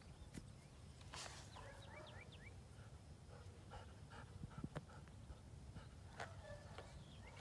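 Quiet outdoor ambience: a dog panting softly, with scattered faint high chirps and a steady low rumble underneath.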